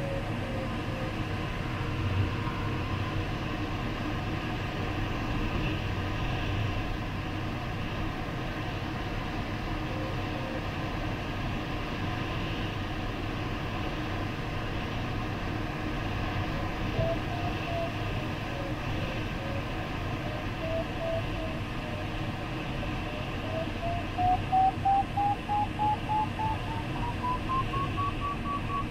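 Glider's electronic variometer tone over steady airflow noise in the cockpit: the tone wavers up and down, then over the last few seconds turns to beeping and climbs steadily in pitch, the sign of the glider entering rising air in a thermal.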